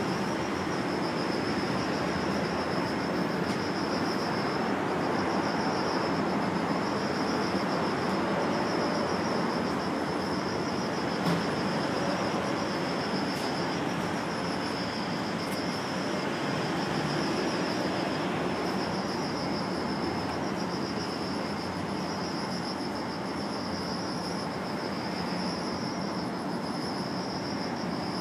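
An insect trilling high and steadily, its song breaking off briefly every second or so, over a steady background hiss.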